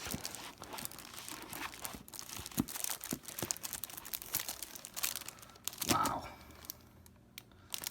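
Packaging crinkling and rustling as a pack of socks is handled and unwrapped, in a busy run of crackles that dies down after about five seconds.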